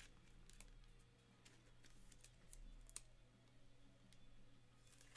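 Near silence with a few faint, scattered clicks and taps from trading cards being handled, over a low steady hum.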